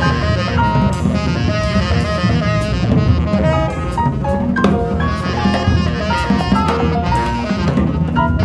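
Jazz quintet playing live: tenor saxophone, archtop guitar, piano, double bass and drum kit, with a line of short melodic notes over a busy rhythm section.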